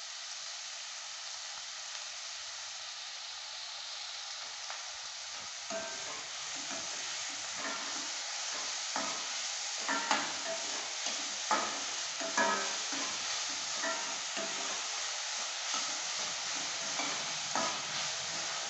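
Chopped onions and cumin sizzling in oil in a steel kadai as they sauté, with a steady hiss. From about six seconds in, a metal spoon scrapes and clinks against the pan as the onions are stirred.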